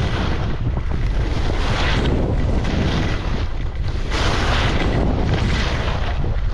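Wind buffeting the camera microphone while riding downhill, with the hiss of edges carving through snow swelling and fading every second or two with each turn.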